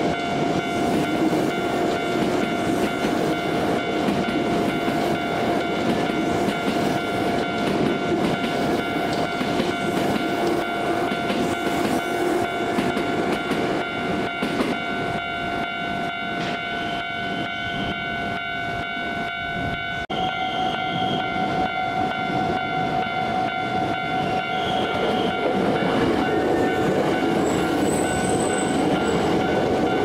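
Japanese level-crossing warning bell ringing steadily, its tone stepping slightly higher about two-thirds of the way through. A Hankyu 5300 series electric train rumbles in under it and grows louder near the end as it rolls through the crossing, wheels clacking over the rails.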